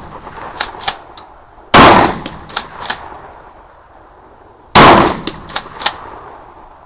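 Shotgun firing two loud shots, about three seconds apart, each blast dying away over about a second. Each shot is followed by a few fainter sharp cracks.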